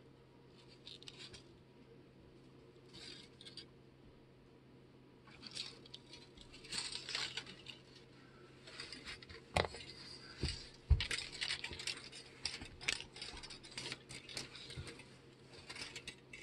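Hand-handling noises from a small magnetic C-core assembly: scratching and rustling of plastic coil bobbins and magnet wire, with sharp clicks and knocks of the core pieces and magnets. The loudest are a few knocks about ten seconds in.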